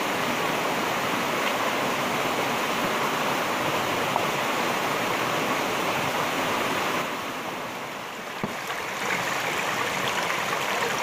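A shallow rocky stream running: a steady rush of water, which drops a little for a moment about eight seconds in before coming back.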